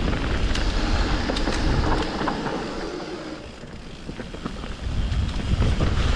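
Wind rumbling on the microphone while moving along a dirt trail, with scattered small crunches and clicks. The rumble eases for a couple of seconds about halfway through, then returns.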